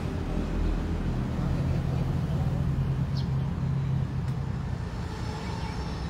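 Steady low motor rumble with a constant hum, like a nearby engine or road traffic.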